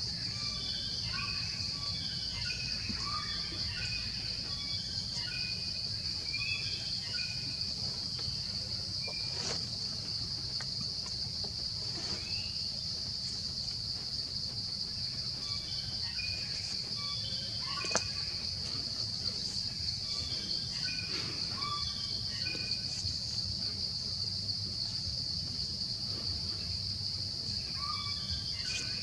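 Steady, unbroken high insect buzz, with clusters of short falling chirps repeated through it and a few faint clicks.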